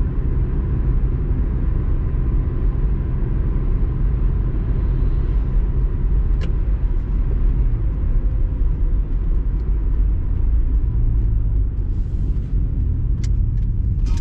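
Car cabin noise while driving: a steady low rumble of engine and tyres on the road, with a few light clicks near the end.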